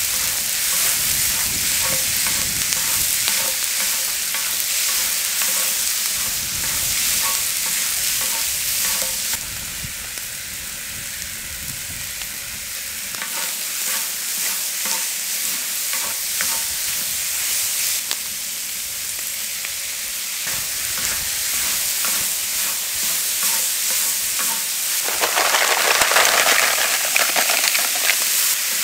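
Food stir-frying in a hot pan, a steady sizzle while it is stirred. The sizzling swells louder near the end.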